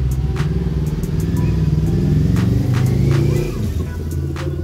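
A vehicle engine running nearby, its note swelling for about a second and a half around the middle and then dropping back, with a few light sharp clicks over it.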